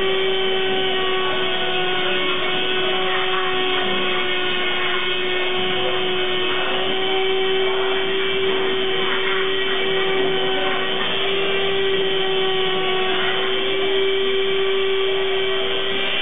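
Handheld rotary tool (mototool type) serving as the spindle of a homemade CNC router, running with a steady whine while its bit routes into a wooden board.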